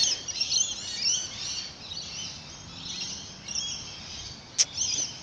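Several small birds chirping and twittering, many short overlapping high calls, with a single sharp click about four and a half seconds in.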